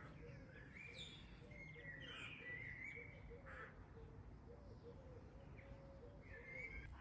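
Faint spring birdsong: songbird chirps and whistles over a steady run of short, low calls repeating two or three times a second.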